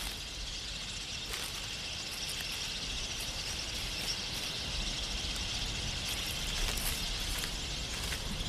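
Outdoor bush ambience: a steady high-pitched insect drone, with scattered short high ticks.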